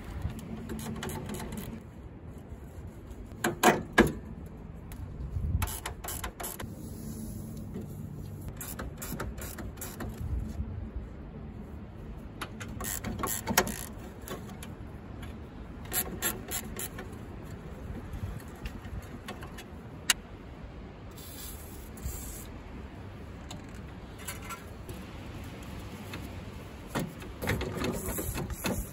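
Hand work on a car's front end: scattered clicks, clinks and knocks of tools and metal parts, with a short aerosol spray hiss a little past the middle and again near the end.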